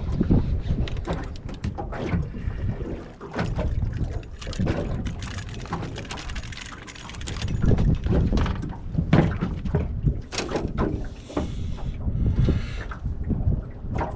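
Wind buffeting the microphone and water moving against a small boat, with many short knocks and splashes as a calico bass is reeled in and lifted aboard.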